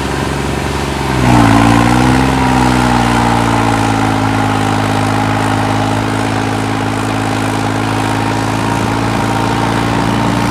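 Vehicle engine running steadily; about a second in it is revved and grows louder, its pitch dipping briefly and then holding steady.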